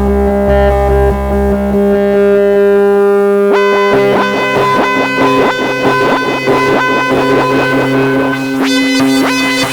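A Eurorack modular synthesizer patch played through the Make Noise Bruxa module, holding a major-seventh chord. About three and a half seconds in, quick repeating upward pitch sweeps start over the held notes and run on.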